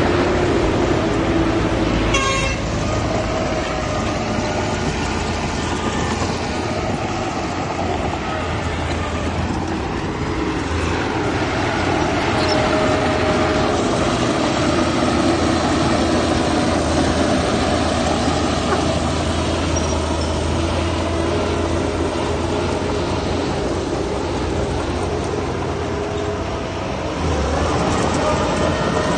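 Heavy diesel earthmoving machinery running steadily, with a short rattle of rapid clicks about two seconds in and the engine noise growing louder near the end.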